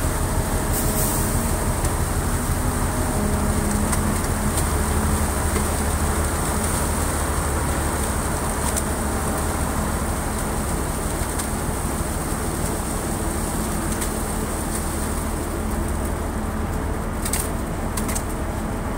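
Grab dredger's crane machinery running steadily, a low mechanical drone, as the clamshell grab bucket is hoisted out of the water and swung over the barge. A few short clicks stand out near the end.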